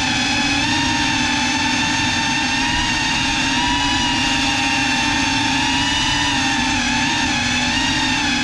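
GEPRC CineLog35 cinewhoop drone's brushless motors and ducted propellers running in flight, heard from the camera mounted on it: a loud, steady whine that wavers slightly in pitch.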